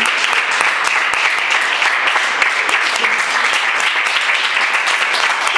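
Applause from many hands: dense, steady clapping.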